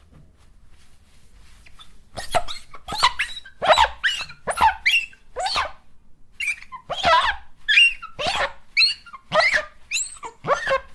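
Paper towel wiped across a glass mirror, squeaking in short strokes about twice a second from about two seconds in, each squeak sliding in pitch.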